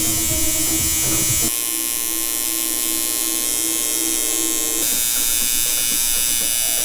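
Electric tattoo machine buzzing steadily as its needle inks an outline into skin. The sound changes abruptly about a second and a half in and again near five seconds.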